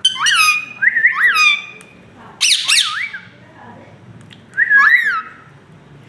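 Indian ringneck parakeets calling: loud squawks in four short bouts, each note rising and then falling in pitch.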